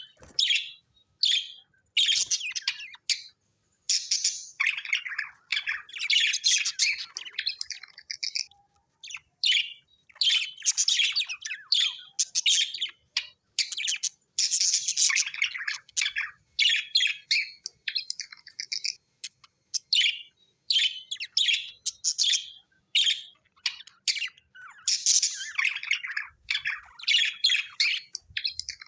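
Budgerigars chirping and chattering: quick bright chirps with short gaps, breaking now and then into a few seconds of continuous warbling.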